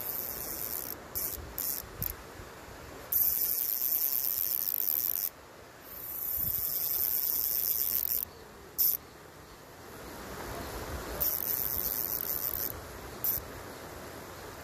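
Voxxi MV1 1000 spinning reel's drag buzzing in about eight abrupt high bursts, from brief chirps to runs of about two seconds, as a hooked fish pulls line off the reel.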